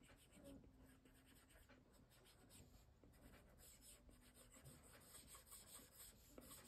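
Apple Pencil tip faintly scratching and tapping across an iPad's glass screen in many quick short strokes, laying in shading texture.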